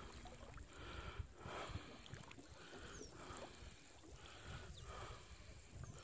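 Paddle strokes in the water from a small boat, a soft swish about every second and a half, over low wind rumble on the microphone.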